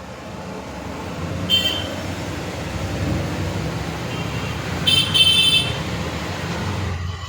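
Road traffic: a vehicle rumbling past, rising and then falling away, with short horn honks about a second and a half in and again around five seconds in.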